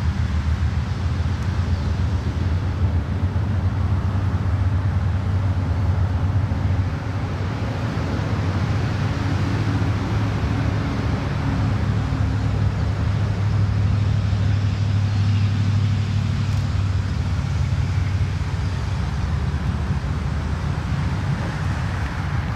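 Diesel locomotive engine running with a steady low drone as the train approaches slowly.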